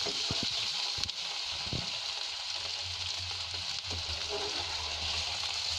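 Paneer cubes sizzling steadily as they shallow-fry in hot oil in a metal kadhai, with a few knocks of the spatula against the pan in the first two seconds.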